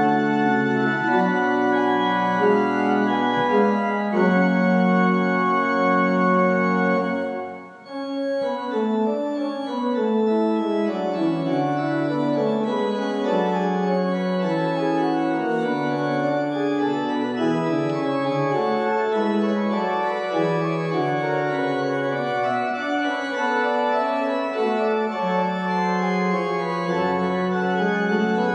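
Organ music: held chords moving step by step over a changing bass line, breaking off briefly about eight seconds in before going on.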